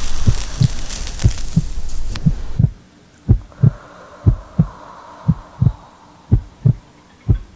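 Heartbeat sound effect: paired low thumps, lub-dub, about once a second. For the first couple of seconds a loud steady hiss lies over it and cuts off suddenly, leaving the beat with a faint hum.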